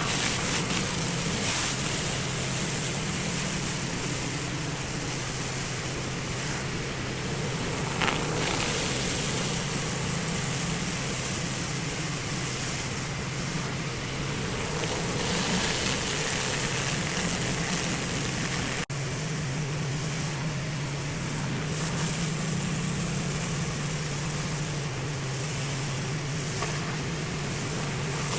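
Pressure washer running steadily: a constant engine hum under the hiss of high-pressure water spraying onto driveway concrete.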